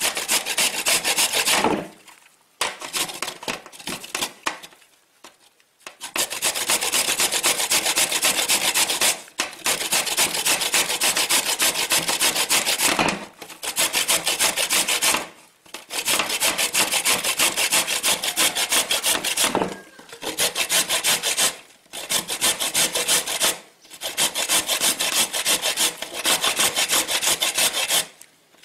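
Carrots being grated on a metal box grater: quick, even rasping strokes in runs of a few seconds, broken by short pauses.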